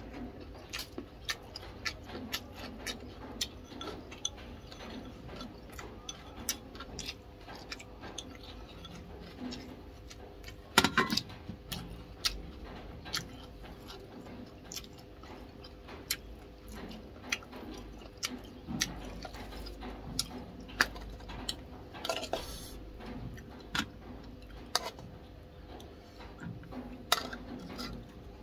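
Close-up eating sounds: chewing and smacking mouth clicks, with light taps of wooden chopsticks against a bowl. A louder cluster of clicks comes about eleven seconds in.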